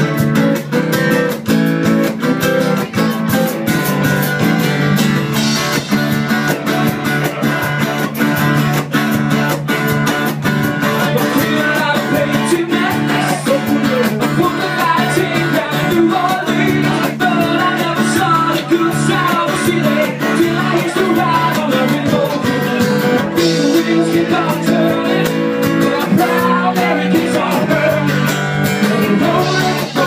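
Live band playing a rock-and-roll song: electric guitar and singing over a steady drum beat.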